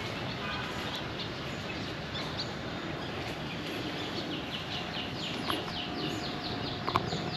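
A songbird calling over steady outdoor background noise: a few scattered chirps, then from about four and a half seconds in a rapid run of short, high, falling notes, about five a second.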